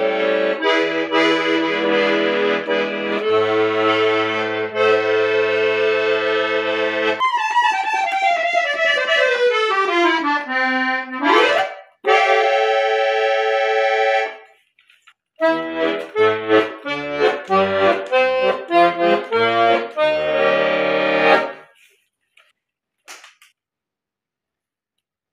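An old Barcarole piano accordion, freshly restored, being played: held chords over bass notes, then a long slide down in pitch and a quick run back up, then short rhythmic chords with bass before the playing stops near the end.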